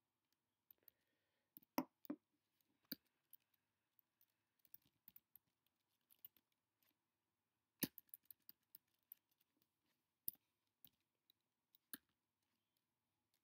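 Faint, irregular clicks of computer keyboard keys as words are typed and deleted: a few keystrokes at a time with pauses between.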